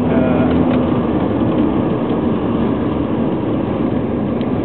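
Steady road noise of a moving car: tyre and engine rumble heard from inside the car.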